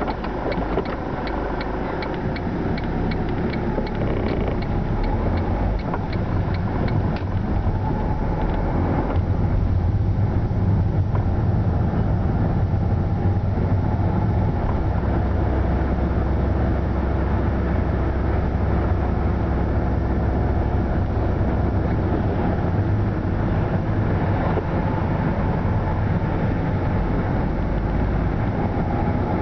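Car engine and tyre noise heard from inside the cabin while driving, a steady low hum. For the first several seconds the turn indicator ticks at an even pace, then stops.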